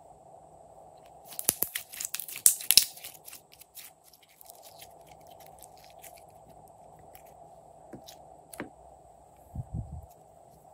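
Glossy slime being pulled and stretched by hand, giving a quick run of sticky crackling clicks and pops from about a second and a half to three seconds in, then scattered single clicks. A short low thump near the end.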